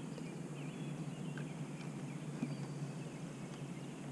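Faint birds chirping in the first second or so, over a steady low hum of outdoor ambience.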